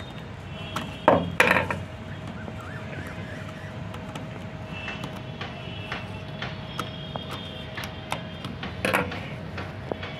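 Small screwdriver working the screw of a plastic toy iron's battery cover: faint scattered clicks and scrapes, with a couple of louder knocks about a second in and near the end.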